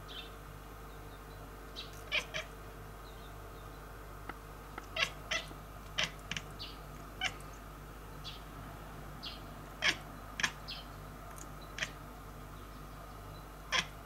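House cat making short chirping calls, about a dozen brief calls scattered through, several coming in quick pairs.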